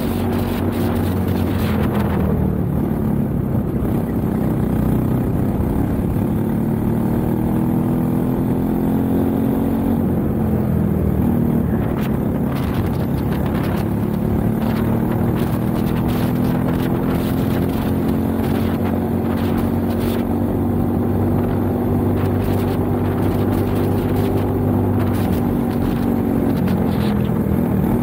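Racing kart engine at full race pace, heard from onboard. Its pitch climbs steadily and drops back several times, about two seconds in, again around ten seconds in and near the end, as the kart speeds up and slows for corners.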